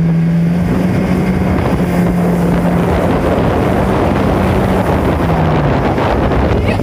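A Mercury 60/40 outboard jet running at full throttle as the jon boat gets up on plane in about 18 inches of water and speeds up. A steady engine hum sits under a heavy rush of wind and water.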